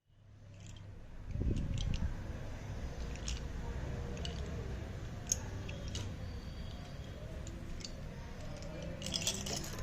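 Close-miked chewing and crunching, a low steady grinding with scattered small sharp crunches and clicks, and a short burst of crackles near the end.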